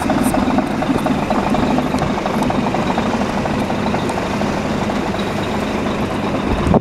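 Scania P380 8x4 tipper truck's diesel engine idling steadily, with an even pulsing throb.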